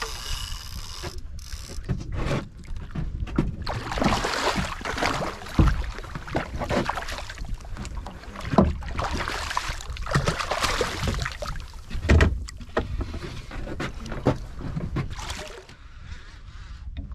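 Sounds of a small fishing boat on the water: a rushing, rustling noise full of knocks, with heavier thumps about six, nine and twelve seconds in, quietening near the end.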